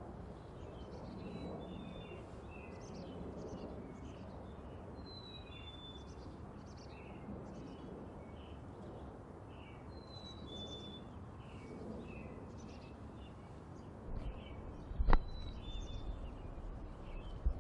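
Chickadees calling with many short, high chirps and brief whistled notes, over a steady low outdoor background noise. A single sharp knock near the end as the camera is bumped while being moved.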